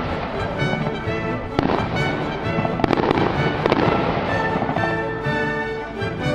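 Fireworks bursting and crackling, densest about three to four seconds in, over orchestral music with held notes.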